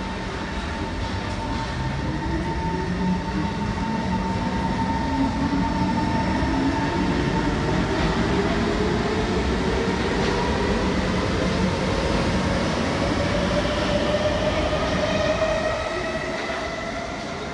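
SMRT C151 metro train accelerating out of a station: its traction motors whine in a smooth, steadily rising pitch over the rumble of wheels on rail as the cars pass close by.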